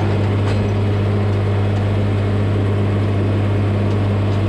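Tractor engine running steadily and driving a vertical TMR feed mixer's augers through the PTO, a constant low hum, as the last of the feed is unloaded.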